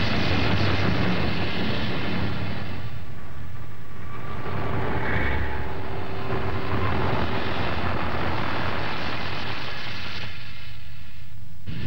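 Lava eruption on Surtsey: a steady low rumble with noise spread across the range above it. The upper noise thins out briefly about three seconds in and again near the end, then the sound cuts off abruptly.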